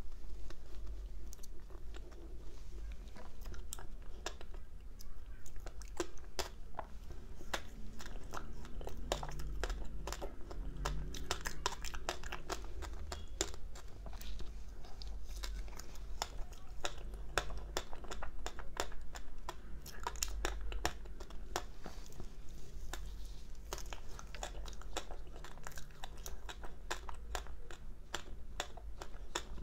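Soft, powdery ice coated in matcha powder being bitten and chewed, a steady run of crisp crunches and crackles.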